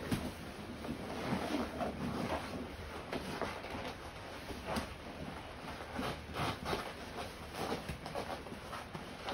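A person grappling with a dummy on foam mats: irregular scuffs, rustles and soft thumps as bodies and limbs shift against the mat.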